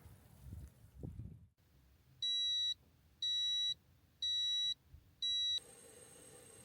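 An electronic appliance's beeper sounds four times, evenly about a second apart, each a short high steady tone. Faint low handling noise comes first, and a faint steady hum sets in near the end.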